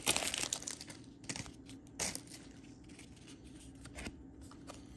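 A trading-card pack wrapper crinkling as it is torn open, dying away within the first second. A few faint rustles and taps of cards being handled follow.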